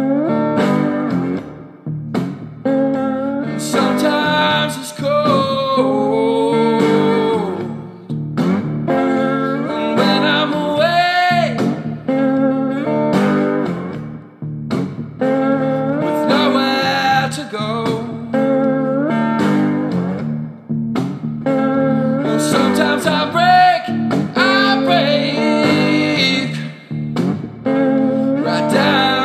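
Background music: a blues track with guitar, including slide guitar.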